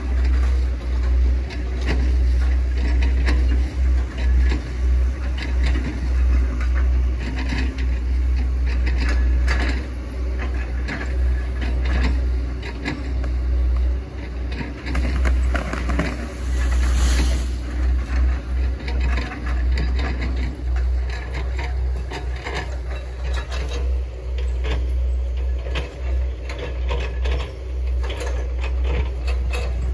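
Hitachi ZX110 MF excavator working. Its diesel engine runs under a heavy low rumble, with frequent knocks and cracks from the bucket chipping oil palm trunks, and a short hiss about halfway through.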